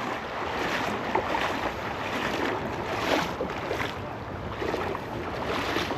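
Steady rushing of river water with wind buffeting the microphone.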